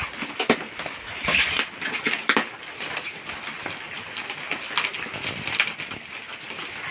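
A parcel's wrapping being torn and pulled off by hand: irregular rustling and tearing with many sharp clicks.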